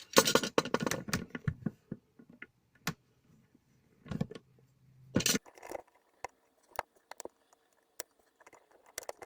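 Irregular clicks, scrapes and small metallic rattles of hands working electrical wires, crimp connectors and hand tools, busiest in the first second and a half and again around four to five seconds in.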